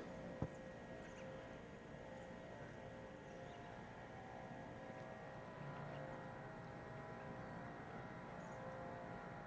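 Faint steady background hum with a single click about half a second in.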